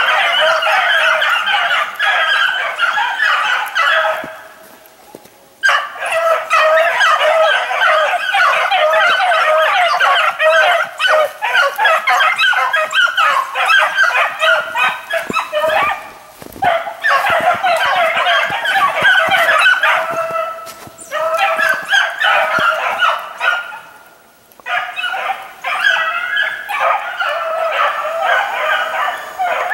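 Dogs barking and yelping in a dense, overlapping chorus that goes on almost without a break, stopping briefly three times.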